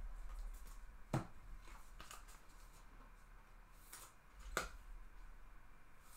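Baseball trading cards being handled and sorted by hand, with two sharp taps, about a second in and again a few seconds later, over a quiet room.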